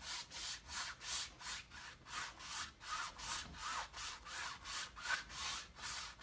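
Paint being scrubbed onto a stretched canvas in quick back-and-forth strokes, about three a second.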